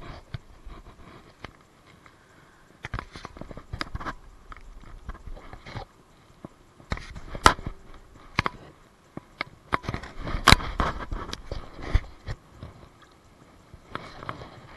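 Irregular crackling and crunching handling noise: clothing and dry bank grass rustling and rubbing close to a body-worn camera's microphone, with sharp clicks scattered through it, the loudest about seven and ten seconds in.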